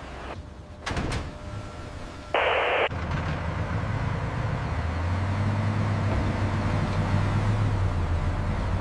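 A vehicle engine running with a steady low rumble, which starts about three seconds in after a couple of sharp clicks and a half-second burst of radio-like static.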